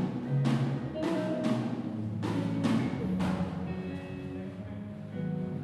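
Live band music: a drum kit with repeated cymbal crashes and drum hits over sustained keyboard or bass notes. The crashes stop about three and a half seconds in, and the held notes carry on.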